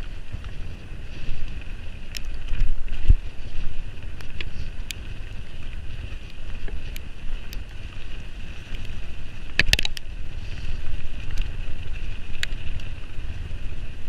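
Mountain bike on a fast descent down a muddy forest trail: wind rushing over the camera microphone and tyres rolling through mud, with scattered clicks and rattles from the bike and a louder knock and rattle about two-thirds of the way through.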